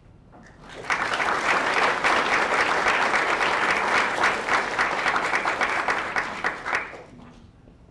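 An audience applauding in a room. The clapping builds quickly about a second in, holds steady for about six seconds, then dies away.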